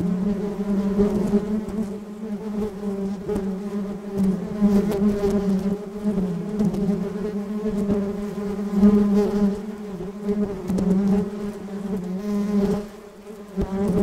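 Many bees buzzing together in a continuous, slightly wavering low hum, dipping briefly in loudness near the end.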